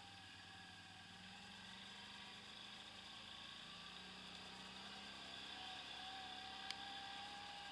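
Quad bike (ATV) engine running at a steady low speed, heard faintly as an even hum that grows slightly louder, with one sharp click near the end.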